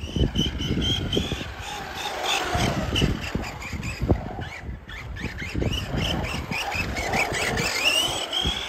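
Arrma Senton 3S short-course RC truck's brushless motor and drivetrain whining as it drives fast on asphalt. The whine bends up and down with the throttle and rises in pitch near the end, over low, irregular thuds.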